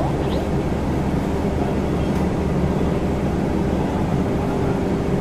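Bulk carrier's machinery running with a steady low hum, a higher steady tone growing a little stronger about four seconds in.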